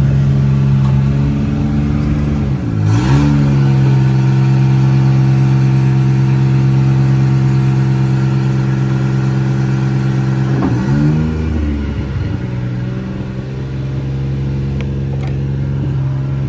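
Bucket truck engine running steadily at a held speed. Its pitch dips briefly and recovers twice, once about three seconds in and again about eleven seconds in.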